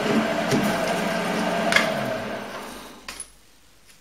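Optimum D180x300 Vario mini lathe running with its chuck spinning, then switched off and winding down over about a second, starting about two seconds in. Two light clicks follow just after it stops.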